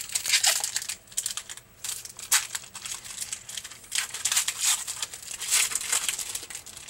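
Wrapper of a hockey trading-card pack crinkling as it is torn open and handled, in repeated rustling bursts.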